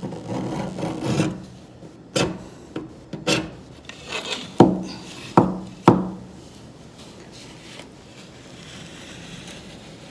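A flattened selfie stick scraping and rubbing in a door gap as it is worked against the latch, with about five sharp knocks in the middle of the stretch; the attempt to slip the latch is not working. Quieter rubbing follows the knocks.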